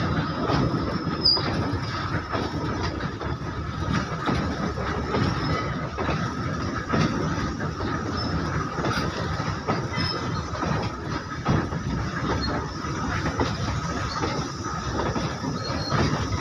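Coal goods train's open wagons rolling past close by: a steady rumble of steel wheels on rail, broken by many short clacks over rail joints, with a steady high-pitched wheel squeal running over it.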